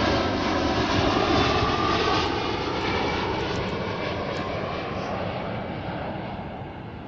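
Boeing 757 jet airliner passing low overhead on approach. Its engine noise is a dense rush with faint tones in it, loudest at first and fading steadily as the jet moves away.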